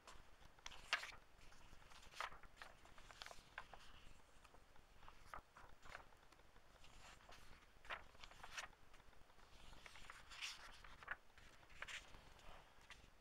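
Pages of an old hardback book being turned and handled: faint, irregular paper rustles and soft crackles.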